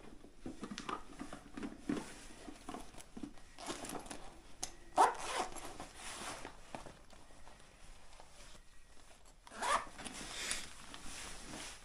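Zipper on a leather shoulder bag being pulled open, with two long rasping pulls, one about five seconds in and another near ten seconds, and softer rustling of the bag being handled around them.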